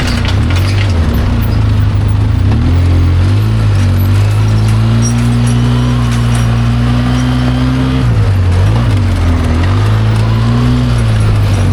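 ATV engine running under load on a rough trail, its speed rising and falling with the throttle; it holds a steady pitch for a few seconds mid-way, then drops and picks up again twice near the end.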